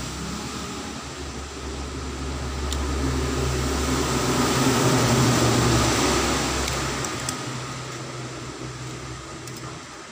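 A motor's steady drone with a low hum, swelling to its loudest about halfway through and then fading away, as a passing vehicle does. A few faint clicks of a plastic phone casing being handled.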